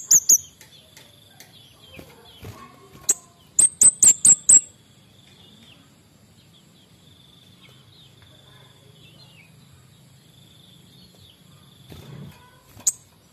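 Male scarlet-headed flowerpecker (kemade bunga api) calling: very high, sharp chirps, a quick run of about five a few seconds in and single notes at the start, around three seconds and near the end, with a faint thin high trill between.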